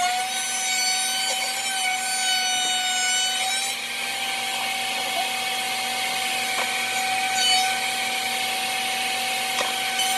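Router with a roundover bit running and cutting along the edge of a panel: a steady motor whine over the hiss of the cut.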